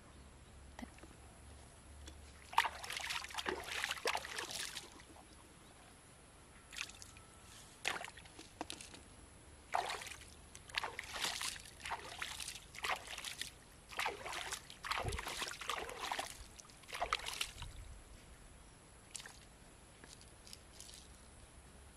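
Shallow pond water sloshing and splashing in several short, irregular spells of a second or two each, with quiet gaps between.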